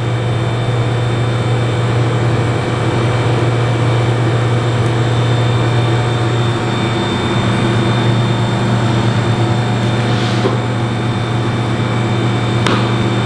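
Steady low hum of kitchen machinery, with a few light clicks near the end as a knife scores between the rib bones of a lamb rack.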